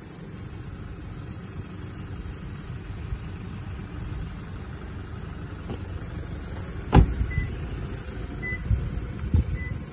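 The rear side door of a Toyota Prado SUV slamming shut about seven seconds in, over a steady low rumble, followed by a few light knocks and three faint short beeps about a second apart.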